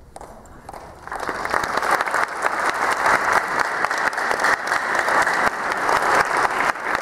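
Audience applause, rising quickly about a second in and then holding steady, right after the band's final note.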